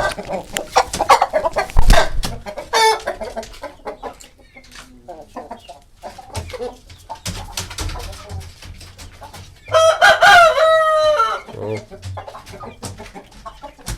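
Hens and roosters clucking, with scattered short calls, and one rooster crowing about ten seconds in, a single crow lasting about a second and a half that is the loudest sound.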